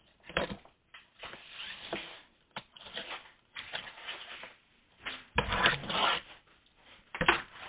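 Cardboard parcel and packing material being handled, with a run of uneven scraping and rustling and a few sharp knocks. The longest and loudest scrape comes about five and a half seconds in.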